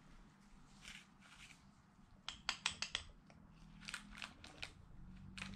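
Light metallic clicks and scrapes as a wrist pin is pushed through a YCP piston and a Speed Factory connecting rod's small end by hand. There is a quick run of clicks about halfway through and a few more about a second later.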